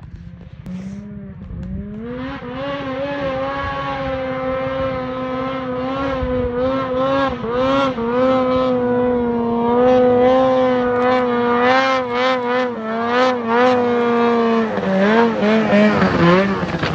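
Snowmobile engine held at high revs while the sled skips across open river water, growing louder as it approaches. Near the end the pitch dips and wavers rapidly with throttle changes as the sled reaches the ice edge and runs up onto it.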